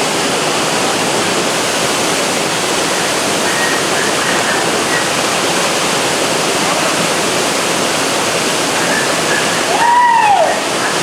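Steady rush of a waterfall pouring into a swimming hole. A person's voice calls out over it once near the end, rising then falling.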